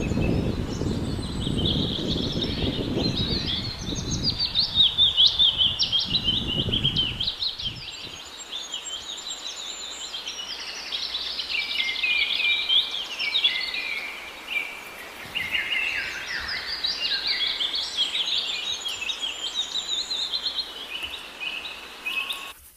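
A chorus of small songbirds chirping and twittering, many short high calls overlapping. Under it, for the first seven or so seconds, runs a low rumbling noise that stops abruptly.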